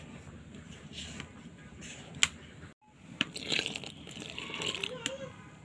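Hand rubbing and working through dry rice flour in a bowl: a soft crunching, squishing rustle with small clicks, broken off abruptly a little before halfway, then picking up again with faint voices in the background.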